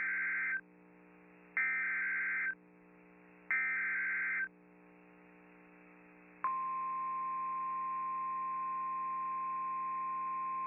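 Emergency Alert System SAME header: three short bursts of rasping, warbling data tones about a second apart. About six seconds in, the NOAA Weather Radio 1050 Hz warning alarm tone starts and holds steady, the signal that a warning is about to be broadcast. A low steady hum runs underneath.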